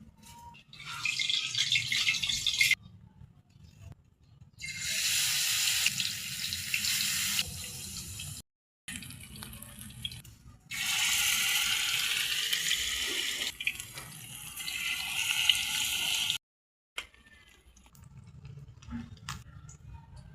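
Water running or being poured, in three stretches of a few seconds each, the longest about six seconds.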